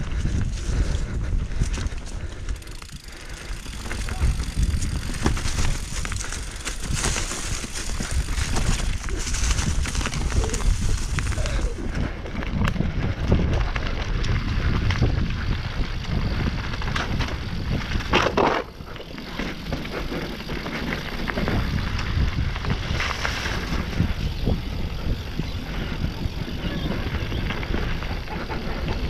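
Mountain bike rolling fast over a dirt trail: tyres on dirt and stones, the bike rattling over bumps, and wind rumbling on the camera microphone. One sharp knock about two-thirds of the way through.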